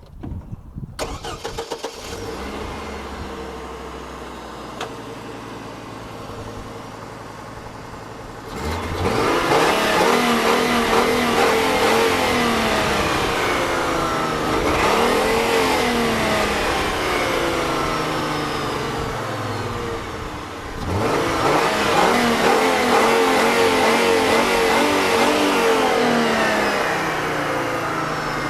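A pickup truck's five-cylinder engine starts about a second in, right after a spark plug change, and runs: the fresh plugs work. It idles, then is revved twice for long spells, from about eight seconds in and again from about twenty-one seconds in, with the pitch rising and falling.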